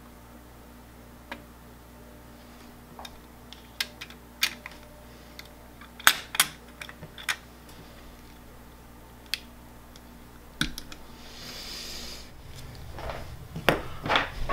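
Scattered light clicks and taps of a CPU being seated in an LGA 1151 socket and the socket's metal load plate and lever clamped down, the loudest two clicks about six seconds in. Near the end, busier handling noise.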